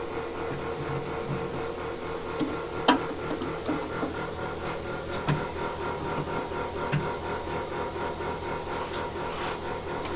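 Steady mechanical hum with a faint rhythmic texture, broken by a few sharp clicks, the loudest about three seconds in and another about seven seconds in.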